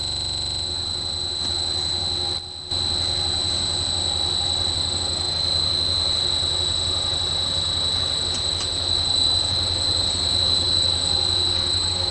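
CYS-100 food extruder and its production line running: a steady machine hum with a constant high-pitched whine over it. The sound dips briefly about two and a half seconds in.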